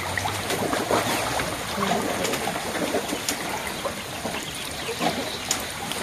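Water sloshing and trickling as people wade through a shallow pond and lift a wet fine-mesh seine net, with many small splashes and drips.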